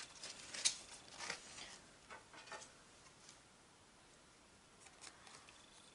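Faint light taps and rustles of Pokémon trading cards being handled, several in the first few seconds and a couple more near the end.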